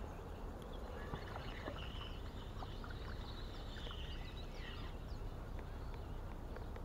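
Quiet riverside ambience: a steady low rumble with faint bird chirps in the middle, and a few small clicks and taps as a spinning rod and reel retrieve a wobbler.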